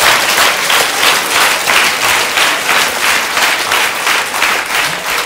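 Studio audience applauding steadily, a dense clatter of many hands clapping.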